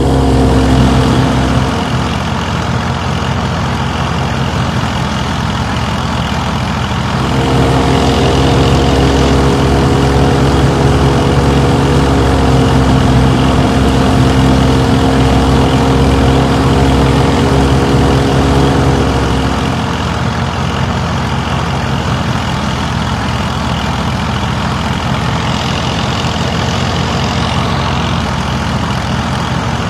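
Small electric motor of a miniature model wheat thresher running with a steady hum, driving the threshing drum by belt while it threshes wheat. The sound gets louder about a quarter of the way in and drops back a little about two-thirds through.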